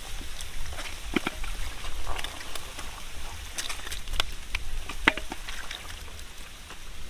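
Scattered wet slaps and clicks from hands grabbing catfish in shallow mud and the catfish flopping on it, over a steady low rumble.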